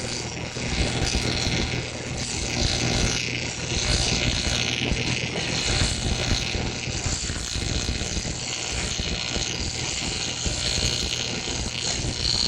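Stick-welding (arc welding) arc crackling and buzzing steadily as the electrode is run over refractory fire brick, with a low steady hum beneath.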